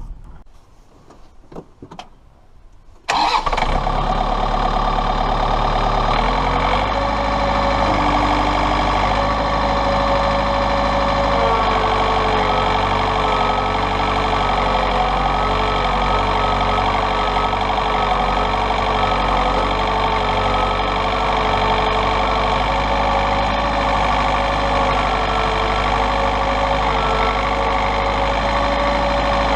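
Tractor diesel engine starting after a few faint clicks about three seconds in, then running steadily; its note shifts slightly about three seconds after it catches.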